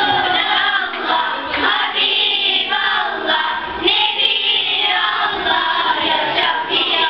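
A choir of young girls singing together.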